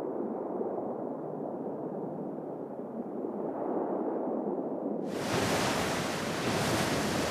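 A dull, muffled wash of water for about five seconds, then an abrupt switch to the full, hissing rush of ocean surf breaking on the shore.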